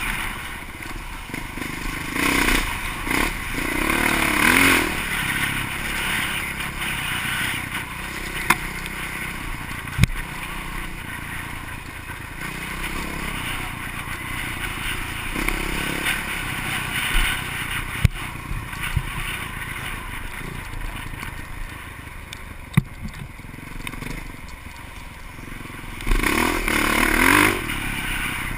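Off-road vehicle engine running under load. It revs up in rising surges a few seconds in and again near the end, with a few sharp knocks and clatter between.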